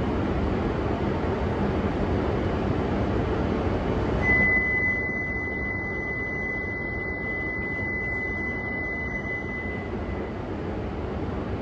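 Steady noise of a Shinkansen platform, with an E5 series train standing at it. About four seconds in, a single steady high electronic tone comes in and holds for about five and a half seconds before stopping.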